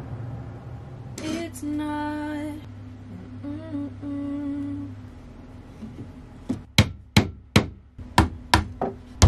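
A woman humming a few notes, then a quick run of about eight hammer blows in the last three seconds.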